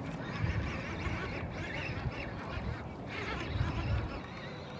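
Waterfowl calling in a few short bouts, over intermittent low rumbling.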